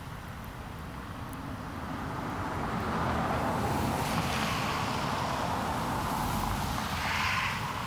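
Car tyres hissing past on a wet, snowy road. The sound swells from about two seconds in as a car passes close and is loudest just before the end, then starts to fade.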